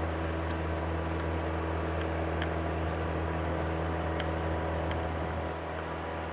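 Steady low machine hum with several unchanging low tones, and a few faint short high-pitched ticks here and there.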